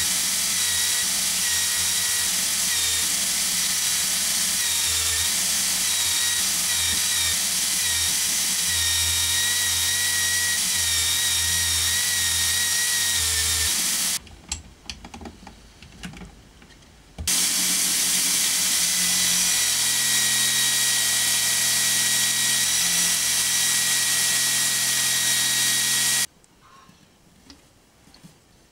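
Electric drill spinning a disc wheel fixed in its chuck, with a steady motor whine. It stops about halfway through, leaves a few seconds of light clicks and handling, then runs again and cuts off near the end.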